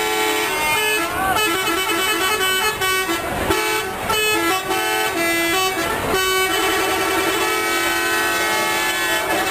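Telolet multi-tone bus horns playing a quick tune, the notes hopping back and forth between a few pitches, with a couple of short breaks.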